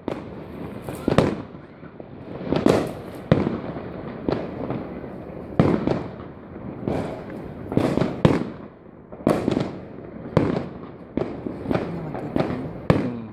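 Fireworks going off one after another: sharp bangs, more than one a second at uneven intervals, each with an echoing tail.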